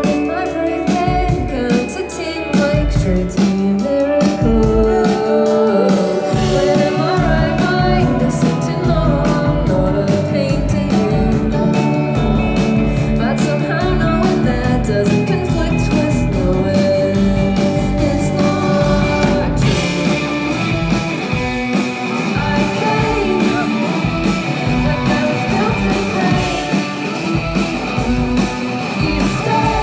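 Indie rock band playing live: electric guitar, bass guitar and drums with a woman singing lead. About two-thirds of the way through, the sound turns brighter and fuller.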